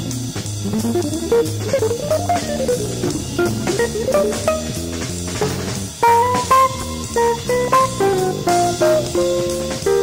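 Instrumental band music: a guitar plays quick runs of notes up and down over bass and drums, breaking into louder, sharply struck higher notes about six seconds in.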